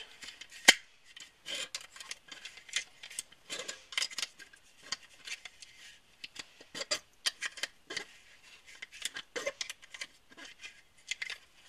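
An UpLULA loader pressing down a compact 1911 .45 ACP magazine as cartridges are loaded one after another. It makes a run of irregular clicks and short scrapes, with one sharp click just under a second in.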